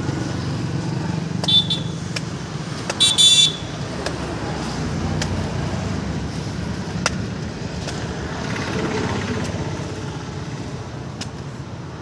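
Road traffic running steadily, with a vehicle horn tooting twice, a short toot about one and a half seconds in and a longer one about three seconds in. A few sharp knocks stand out here and there.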